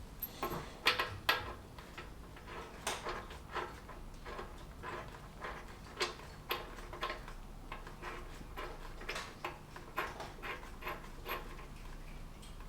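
Irregular light clicks and metallic taps as new spark plugs are handled and started by hand into a Fiat 500 engine's cylinder head.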